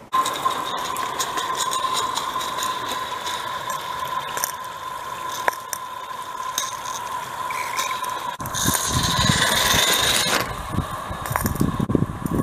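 Live-steam Accucraft Ruby garden-scale locomotive running on its track, with a steady high tone and the wheels clicking and rattling over the rails. About eight seconds in, the sound changes suddenly to a louder, rougher run with low thumps.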